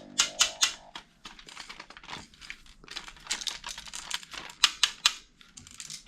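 Irregular, rapid clicks and rattles of plastic toy-gun parts being handled, with one louder click near the end.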